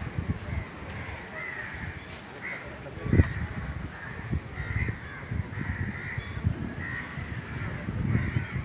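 Crows cawing, many short overlapping calls in a steady run, over low thumps of camera handling, the loudest a sharp knock about three seconds in.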